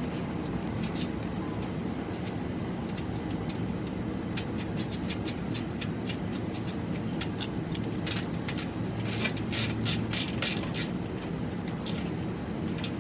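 Washers and nuts being fitted onto carriage bolts through zinc-plated slotted steel angle and tightened down with a wrench: scattered small metal clicks and rattles, thickest a little after the middle.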